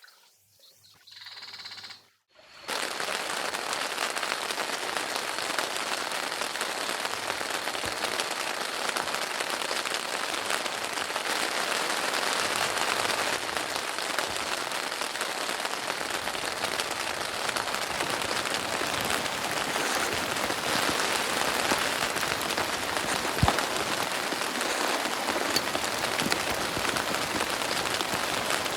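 Heavy rain falling steadily, a dense even rush that starts suddenly after a couple of seconds of near quiet.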